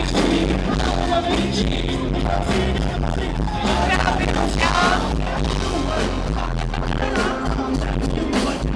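Live band playing loud through stage speakers: drum kit, bass and electric guitar, with a man singing into a handheld microphone.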